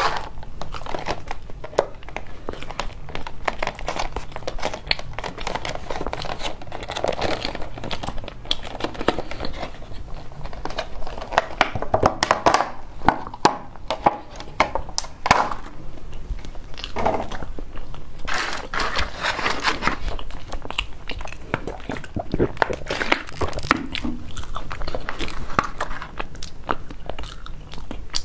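Close-up eating sounds: biting and chewing soft pastry, with the crinkling of clear plastic packaging as a wrapped pastry is opened around the middle. Dense, irregular clicks and crackles throughout.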